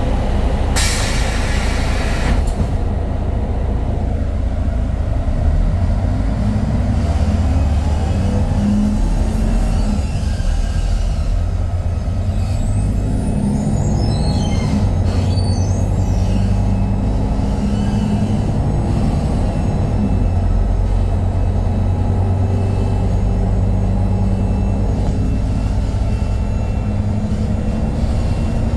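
Cabin noise aboard a moving Mercedes-Benz O-500MDA city bus: a steady low engine and road rumble whose pitch shifts as the engine revs change. A short hiss comes about a second in, and faint high squeaks come around the middle.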